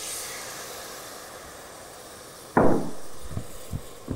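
White wine sizzling in a hot copper sauté pan of cuttlefish, the hiss dying away as it deglazes. About two and a half seconds in a wooden spoon knocks sharply against the pan, followed by a few lighter knocks as it stirs and scrapes the bottom.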